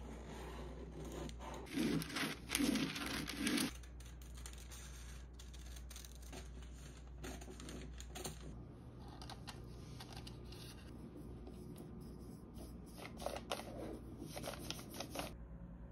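Parchment paper rustling and crinkling as it is handled and fitted into a small round metal cake pan, with louder bursts of paper handling about two seconds in and again near the end.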